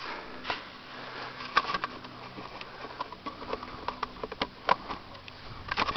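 Mountain bike rolling down a dirt trail, with scattered clicks, knocks and rattles from the bike over rough ground.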